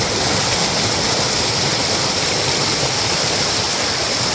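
Loud, steady rush of moving water, with no breaks or changes.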